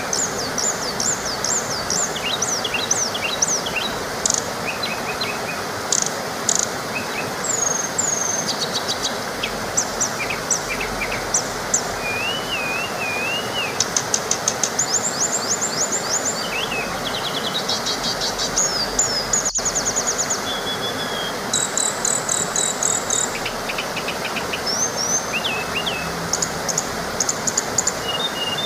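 A small waterfall rushing steadily, with songbirds calling over it in many short chirps, trills and warbled phrases.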